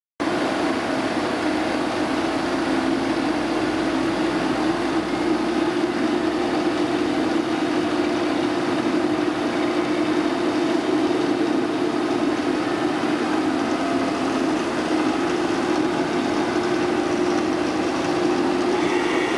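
Huron SXB 523 CNC bed milling machine powered up and idling, with no cutting: a steady mechanical hum under a broad hiss.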